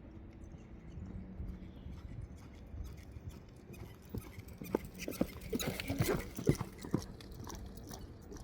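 Horse's hooves clopping, a quick run of knocks from about four and a half to seven seconds in, over a low steady background.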